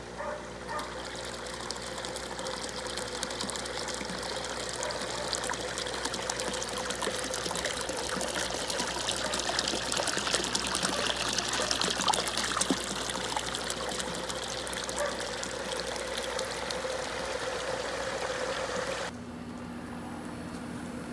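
Water gushing from a pond pressure filter's corrugated return hose and splashing into the pond, as the newly installed filter and submersible pump run for the first time. The splashing is steady and cuts off abruptly near the end.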